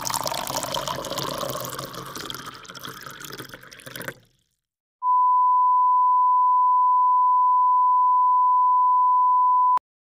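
A noisy sound fades out over the first four seconds; then, after a short gap, a steady pure beep at about 1 kHz, the classic censor bleep, holds for about five seconds and cuts off suddenly.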